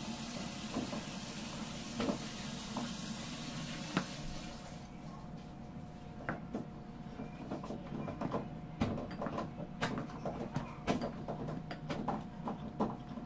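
Irregular light clicks and knocks of a rolling pin and hands working fondant against a granite counter, starting about five seconds in and coming several times a second toward the end. Before that a steady hiss, which cuts off abruptly.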